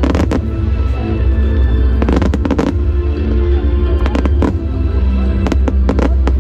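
Fireworks shells bursting in sharp bangs, a cluster at the start, another about two seconds in, then single bangs in quick succession near the end, over music with a heavy steady bass.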